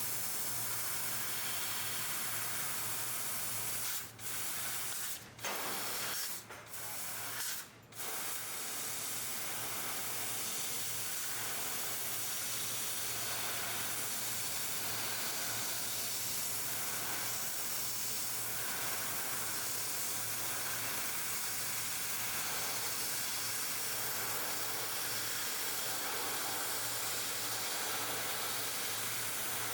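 1000 W fiber laser cutting machine at work: the assist-gas jet at the cutting head hisses steadily over a low hum. The hiss drops out briefly four times, about four to eight seconds in, as the cut stops and restarts.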